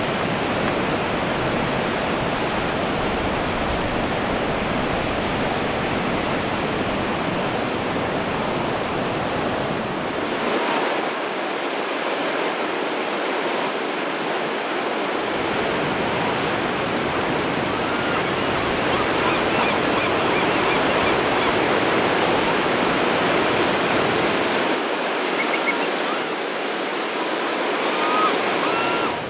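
Ocean surf washing onto a sandy beach, a steady rushing hiss, with a few faint short bird calls in the last ten seconds.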